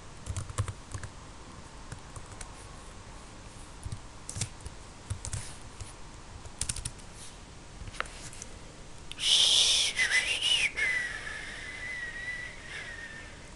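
Computer keyboard typing in scattered clicks. About nine seconds in, a breathy human whistle starts: a high note that dips and wavers, then holds steady for about three seconds before stopping.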